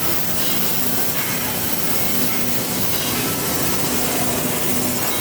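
CNC drilling machine running through a 16 mm plate: a steady loud hiss of machine noise with a low hum that drops out briefly a few times.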